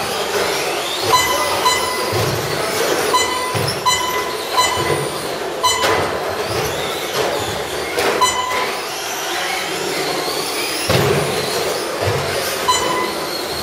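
Several electric Traxxas Slash short-course RC trucks racing on a carpet track, their motors whining up and down in pitch over the noise of tyres on carpet. Short electronic beeps sound at irregular intervals, about a dozen in all, typical of a lap-counting system as trucks cross the timing line.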